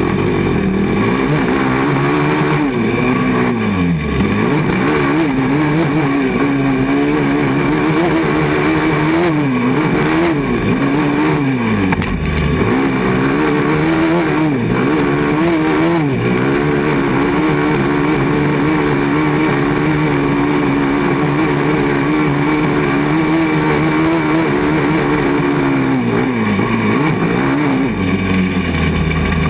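450 race quad's engine running hard on the throttle, its pitch dipping and climbing back several times as the throttle is rolled off and back on. It is heard up close from a mount on the front of the quad.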